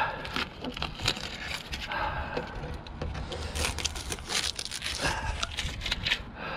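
Masking tape being peeled by hand off a freshly painted plastic car bumper: a crackling, tearing run of small snaps, coming in several pulls.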